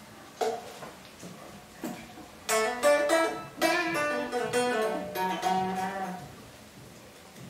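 Eko S300V electric guitar: two single plucked notes, then a quick run of notes stepping downward in pitch that rings out and fades.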